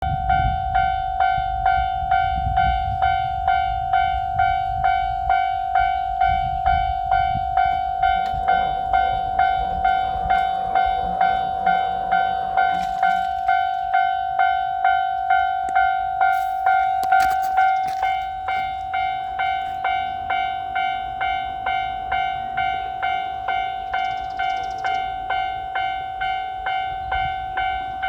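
Japanese railroad crossing warning bell ringing its steady "kan-kan" at about one and a half strikes a second. Low rumbling sits under it in the first part, and a few short clatters come in mid-way. The bell drops a little in level about two-thirds of the way through and keeps ringing.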